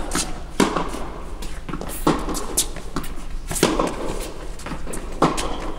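Tennis ball struck by racquets and bouncing on an indoor hard court during a rally: about six sharp pops spaced half a second to a second and a half apart, each echoing briefly in the hall.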